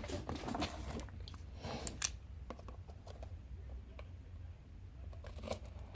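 Faint scattered clicks and rustles of trading cards and a cardboard box being handled, over a low steady hum.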